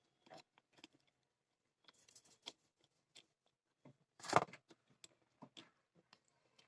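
Scattered light clicks and taps of small hand tools working on a home theater amplifier board while a 2030 amplifier IC is pulled out, with one louder knock about four seconds in.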